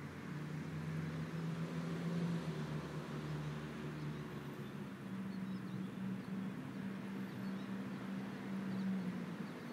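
A steady low engine hum over outdoor background hiss; its pitch steps up a little about halfway through.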